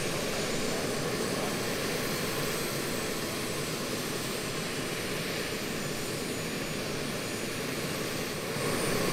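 Small gas-turbine engines of large RC scale model helicopters running on the ground: a steady rushing noise with a thin high whine above it, a little louder near the end.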